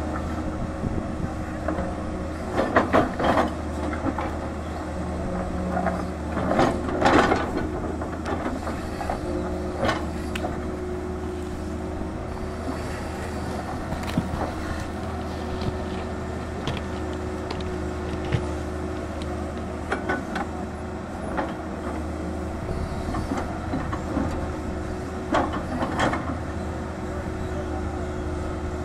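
Tata Hitachi 220 excavator's diesel engine running steadily under load, with several loud bursts of clattering and scraping as the bucket digs into and scoops rocky earth.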